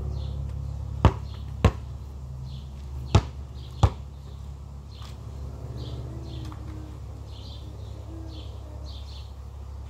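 Basketball bouncing on asphalt: four sharp bounces in the first four seconds, in two quick pairs, then no more. A steady low rumble runs underneath.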